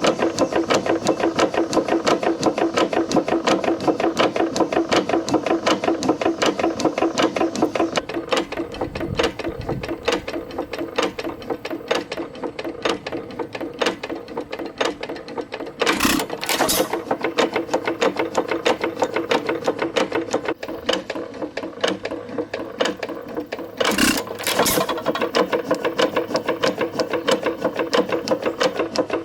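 Detroit Engine Works hit-and-miss engine running, with a fast, even clatter of clanking gears, knocking connecting rod and pumping piston. About sixteen seconds in, and again about eight seconds later, it gives a pair of louder sharp bangs as it fires.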